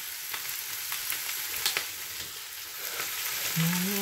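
Chicken thigh frying skin side down in an unoiled frying pan: a steady sizzle with scattered sharp crackles.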